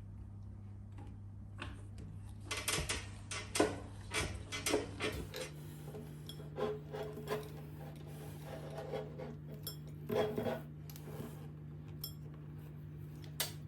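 Meat grinder running with a steady motor hum that steps up in pitch about five seconds in, while gummy candy is forced through it with irregular clicking and scraping.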